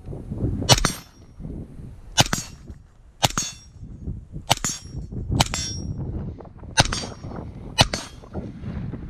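Suppressed Colt 11.5-inch SBR rifle with a SIG titanium suppressor fired seven times at about one shot a second, most shots followed a split second later by the ring of a hit on a steel plate.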